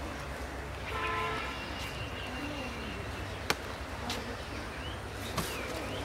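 Outdoor farmyard ambience over a steady low rumble. There is a short honk about a second in, followed by a thin high tone, two sharp clicks and a few faint chirps.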